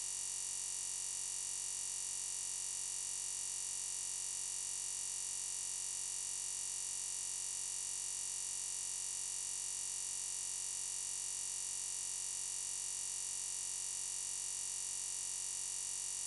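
A steady, unchanging high-pitched hiss, like static, with no other events.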